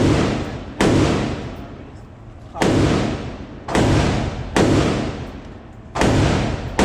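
Firearm shots at a range, about seven, fired at uneven intervals of roughly one to two seconds. Each is a sharp crack followed by a long echoing decay.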